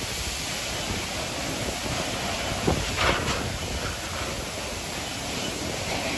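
Strong storm wind with driving rain buffeting the microphone: a steady rushing roar, with a couple of louder gusts about three seconds in.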